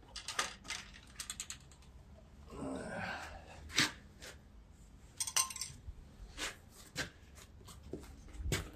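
Irregular light clicks, taps and clatter of an oil funnel and oil bottle being handled and set up at the mower's oil fill, with a brief scraping sound about three seconds in.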